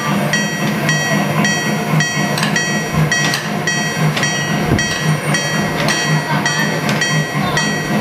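Miniature railway-crossing signal ringing its repeated 'kan kan' crossing bell, about two strikes a second, as the mini train passes; it stops just before the end.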